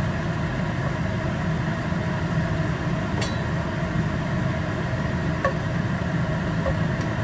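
Steady low hum while greens are stir-fried in a frying pan on a gas stove, with a sharp clink of the spatula against the pan about three seconds in and a couple of lighter taps later.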